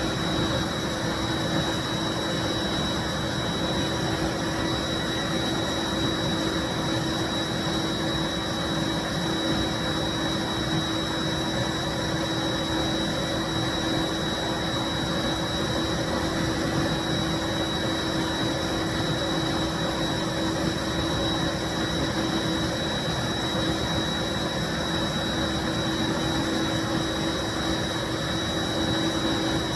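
A 1995 Bissell SC deep cleaning carpet cleaner running steadily: an even motor-and-air rush with a constant low hum and a steady high whine, unchanging throughout.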